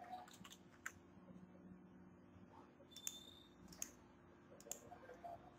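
Faint computer mouse and keyboard clicks, a handful of sharp single clicks spaced a second or so apart, over a faint steady hum.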